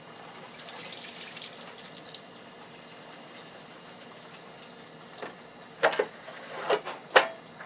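Liquid from an espresso machine's drip tray being poured out, splashing for a second or so, followed a few seconds later by several sharp knocks and clatters of the tray being handled.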